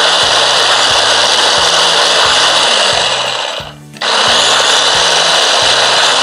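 Small electric food chopper grinding a spice paste of shallots, garlic, candlenut and chili with a little oil: a loud, steady whirring grind. It winds down about three seconds in and starts again a second later.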